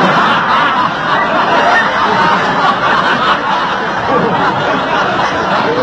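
A crowd of many voices laughing and chattering at once at an even, loud level, as in a comedy laugh track.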